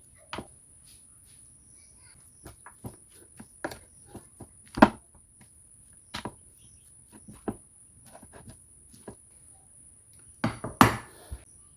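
Irregular clicks and knocks of kitchen handling, a loud one about five seconds in and a quick cluster near the end, over a steady high-pitched whine.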